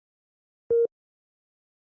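A single short electronic beep, a low steady tone with a couple of fainter overtones, about two-thirds of a second in. It is one of a slow series of identical beeps about every second and a half.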